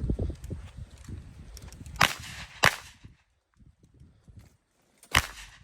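Three single gunshots: two about half a second apart around two seconds in, and a third near the end, each with a short echo.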